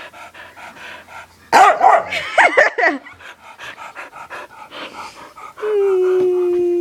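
A dog panting fast and evenly, then a loud burst of barks and yips about a second and a half in, and a long steady whine starting near the end.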